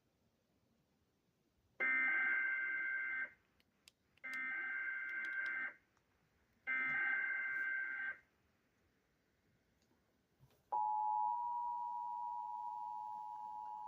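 Emergency Alert System SAME header from a NOAA Weather Radio broadcast: three screeching digital data bursts, each about a second and a half long with a short gap between, marking the start of a new severe thunderstorm warning. About eleven seconds in, the steady attention tone begins.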